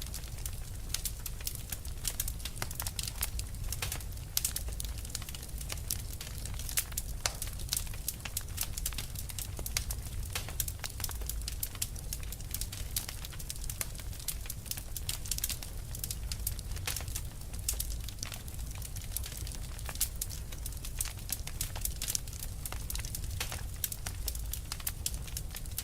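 Fire crackling: dense, irregular pops and snaps over a steady low rumble.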